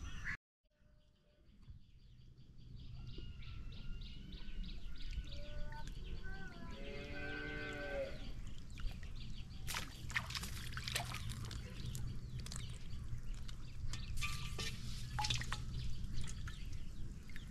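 A cow mooing once, a drawn-out call that rises and falls over about two seconds, heard over a steady low rural background. From about halfway on come scattered sharp splashes of water.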